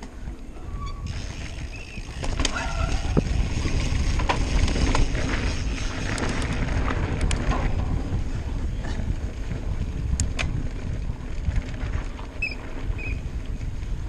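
Mountain bike riding over grass: knobby tyres rumbling on the turf, with scattered clicks and rattles from the bike, under wind buffeting the microphone. It gets louder about two seconds in as the bike picks up speed downhill.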